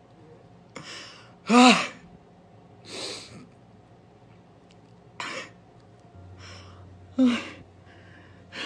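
A man crying: sharp gasping breaths and short voiced sobs, the loudest about a second and a half in.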